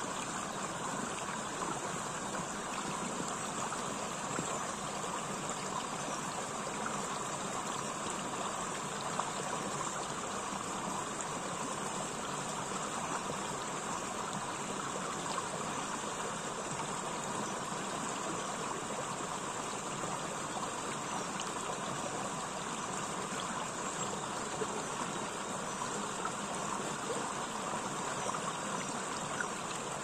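Small shallow stream running over stones and a low cascade: a steady, even rush of water.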